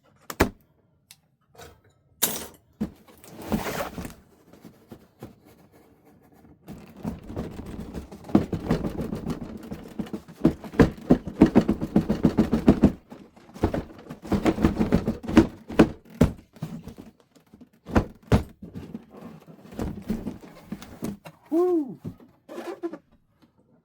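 Cardboard box and packaging being handled and opened: rustling and scraping with a run of knocks and thunks.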